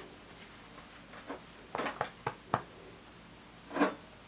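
Faint knocks and clicks of objects being handled in a small room, with a few sharp clicks about two seconds in and a short rustle near the end.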